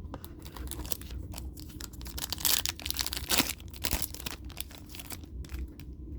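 Foil trading-card booster pack wrapper being torn open and crinkled in the hands, a run of irregular crackles that is loudest about halfway through.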